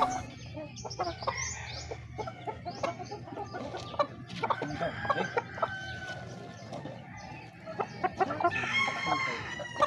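Backyard chickens clucking, with a rooster crowing near the end, over short splashes and rubbing from clothes being scrubbed by hand in a basin of water.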